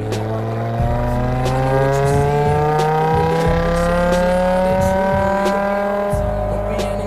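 BMW M5 E60's V10 engine accelerating hard in one long pull, its note rising steadily in pitch, heard from the exhaust at the rear of the car.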